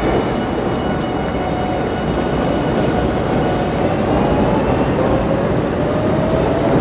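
Kurogane Line freight train rolling across a steel bridge: a steady rumble of wagons on the rails, with faint thin squealing tones, one of them sliding slowly upward near the end.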